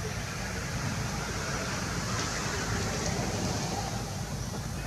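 Steady outdoor background noise: a low rumble with an even hiss over it, no distinct events.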